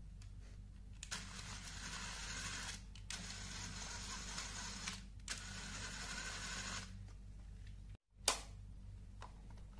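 Small LEGO-type electric motor whirring as it spins a Technic gear train and differential, switched on and off from the remote in three spells of about two seconds. Near the end, one sharp plastic click as the parts are handled.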